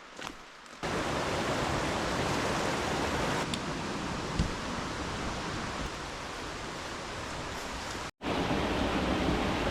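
Steady rush of fast-flowing river water. It starts abruptly about a second in and breaks off for an instant near the end before carrying on.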